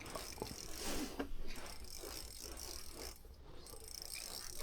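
Fishing reel on an ice-fishing rod clicking as a hooked fish is reeled in; faint, irregular ticks.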